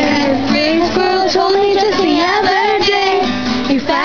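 A woman singing a song in long held notes while strumming an acoustic guitar.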